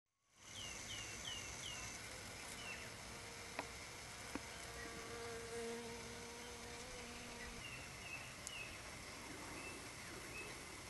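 Garden ambience fading in: small birds giving short, repeated downward-sweeping chirps, some in quick runs of four. A flying insect buzzes steadily for a couple of seconds in the middle.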